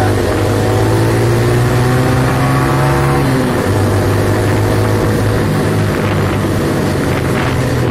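Yamaha Vega underbone motorcycle's small four-stroke single-cylinder engine running steadily while riding, heard from the saddle with wind rushing over the microphone.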